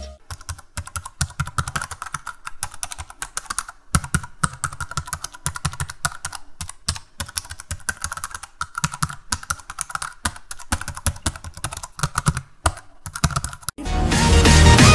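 Rapid, uneven clicking of computer keyboard keys: a typing sound effect. Music comes back in near the end.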